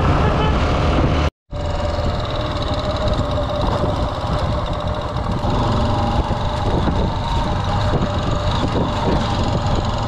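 Motorcycle engine running steadily as the bike rides along a dirt road, with a constant drone. The sound cuts out completely for a moment about a second and a half in, then picks up again.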